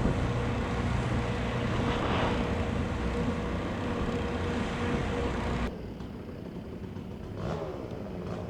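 An engine running steadily, with a low hum under it. About six seconds in it cuts off abruptly, leaving quieter background with a faint voice near the end.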